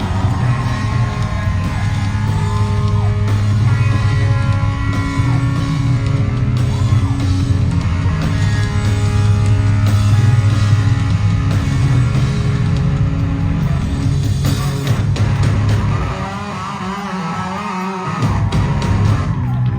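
A rock band playing live and loud, with electric guitar over heavy bass and drums. About three-quarters of the way through, the bass and drums drop out for a couple of seconds, leaving bending guitar notes alone, and the full band comes back in near the end.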